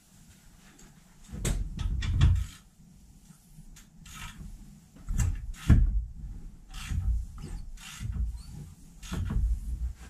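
Wrench turning a Honda Pilot V6 over by hand to bring the cam timing marks into line: several short bouts of clunking and clicking, the loudest about two seconds in and again between five and six seconds.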